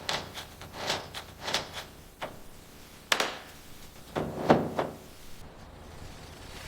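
A series of irregular knocks and clunks, some in quick pairs, the loudest about four and a half seconds in, as of hard parts being handled or struck during workshop work.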